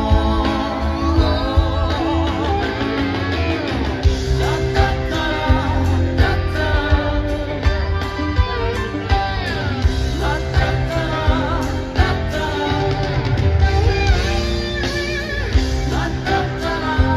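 A live rock band playing: electric guitars, bass, keyboards and a steady drum beat, with a melody line that bends and wavers in pitch over the top.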